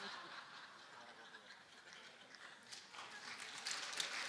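Live comedy audience reacting to a punchline: faint crowd noise, then scattered hand-clapping starting about three seconds in and building.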